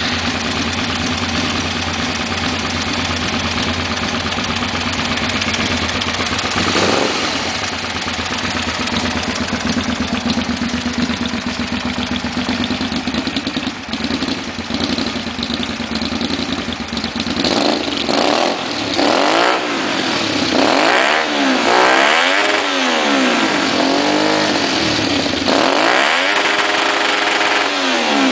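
Suzuki SV400's 90-degree V-twin engine idling steadily just after starting. About two-thirds of the way through it is blipped several times, rising and falling in pitch, then held at a higher rev near the end.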